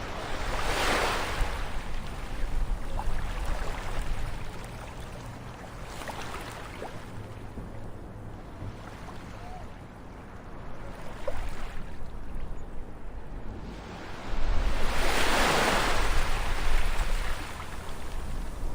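Ocean waves breaking and washing up a shore, each a rush of surf that swells and falls away. The biggest breaks come about a second in and again about fifteen seconds in.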